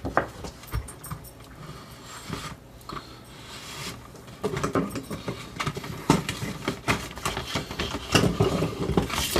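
Handling noises from the angle grinder's carrying case being moved about: scattered clicks and knocks, growing into denser clattering and rattling about halfway through.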